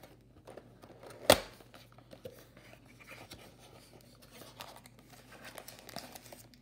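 Handling of a cardboard trading-card hobby box and the foil-wrapped packs inside it: light scuffs, taps and rustles, with one sharp knock a little over a second in.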